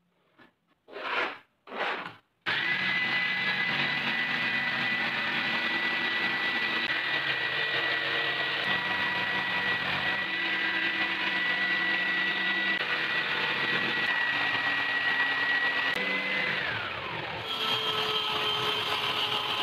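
A pencil makes three quick strokes along a steel ruler on plywood. Then a corded electric jigsaw starts and runs steadily with a high whine, winding down with a falling pitch near the end. A table saw then starts running.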